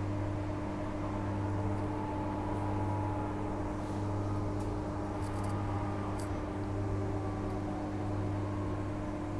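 Inside the carriage of a Transperth A-series electric multiple-unit train in motion: a steady low hum with a faint running noise and a few light ticks.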